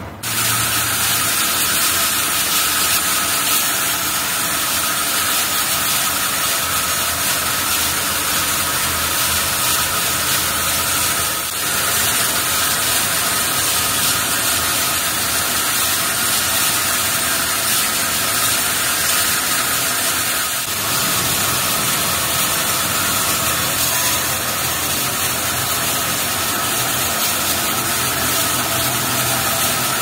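Multi-head horizontal band saw sawmill line running and cutting timber: a loud, steady mechanical noise with a whine through it, dipping briefly twice.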